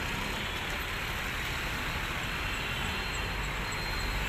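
Steady road traffic noise: a constant hiss of passing vehicles over a low rumble.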